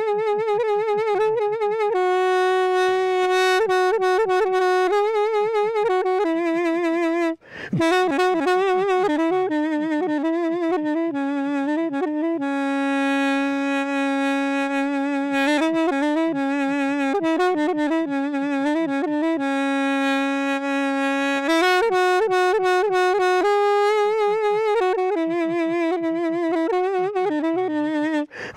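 Music: a solo wind instrument playing a slow, ornamented melody with vibrato and long held notes, broken briefly about seven seconds in.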